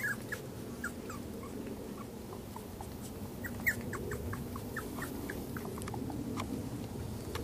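Five-week-old cocker spaniel puppies whimpering and yipping in short, high squeaks, scattered throughout with a flurry of them about halfway through.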